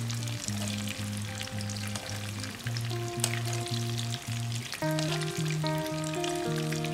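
Hot oil sizzling and crackling in a wok around frying eggplant pieces, under background music with a steady run of bass notes that gets a little louder about five seconds in.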